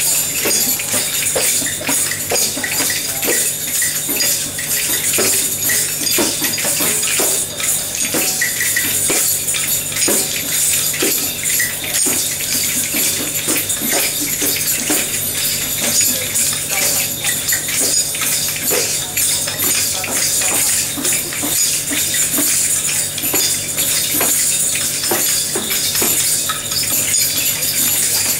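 Many small hand percussion instruments, shaken and clapped together by a large group of people: a dense, irregular jingling and clicking with no clear common beat.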